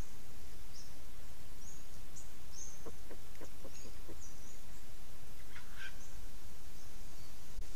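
Steady outdoor hiss with faint, high, short chirps of small birds calling throughout, and a quick run of about six soft taps a few seconds in.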